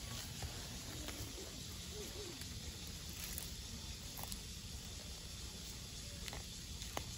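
Sulcata tortoise feeding on leaves: faint rustling and a few soft clicks of its bites, over a low steady background rumble.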